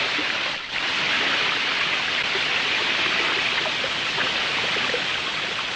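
Water poured in a steady stream over a person's head and splashing down onto them, with a short break about half a second in.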